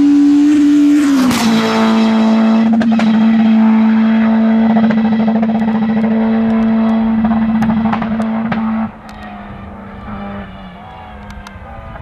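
Rally car engine running hard at high, steady revs. Its pitch drops once about a second in, then holds level, with a few sharp ticks over it. It turns clearly quieter near the end.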